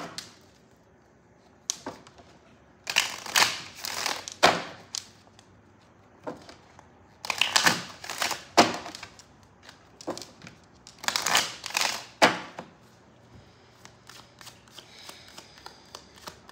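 A deck of angel oracle cards being shuffled by hand: three bursts of rapid card riffling, each a second or two long, with a sharp tap right at the start and light card ticks in between.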